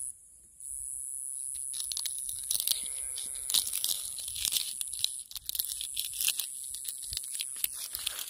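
Dry cicada nymph shell crumbled between fingers close to the microphone: a run of crisp crackles and crunches starting about two seconds in.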